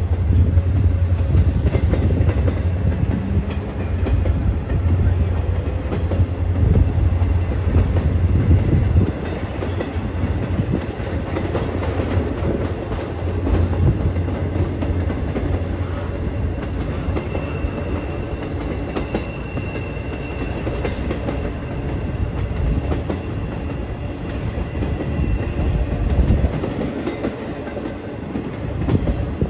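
Empty spine flatcars of a freight train rolling past, steel wheels running over the rails in a continuous clattering rumble. A deep low rumble is strong at first and drops away about nine seconds in.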